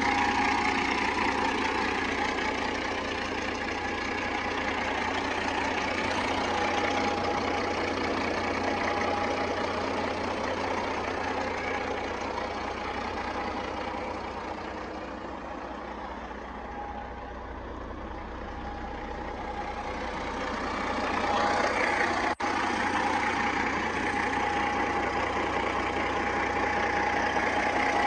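Detroit Diesel Series 60 inline-six diesel in a 1992 Peterbilt 379 idling steadily.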